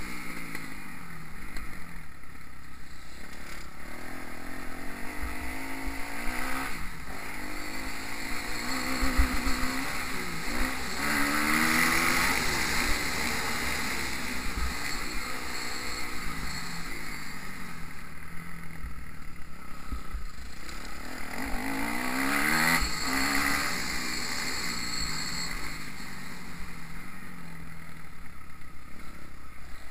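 Kawasaki KX250F four-stroke single-cylinder motocross bike ridden hard around a dirt track. The engine revs rise and fall over and over with the throttle and gear changes, and it climbs hard twice.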